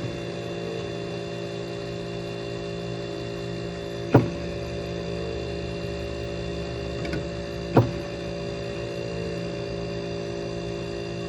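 1970s Carrier 5200 BTU window air conditioner running with a steady hum from its reciprocating compressor while the fan has not yet started. Three sharp knocks come about four seconds apart.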